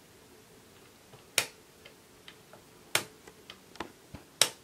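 Hard plastic clicks from the decoder dome of an LOL Surprise Under Wraps capsule being turned by hand: three sharp clicks about a second and a half apart, with fainter ticks between.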